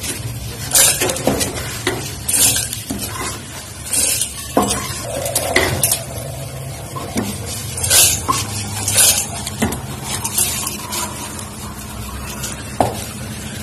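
Metal spatula scraping and scooping dry-roasted chana dal across a kadhai (metal wok), the dry lentils rattling against the pan. There are repeated scrapes about once every second or two.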